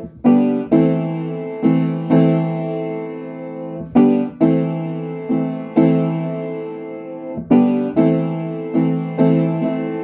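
Piano playing slow chords and notes, each struck and left to ring and fade, about two strikes a second.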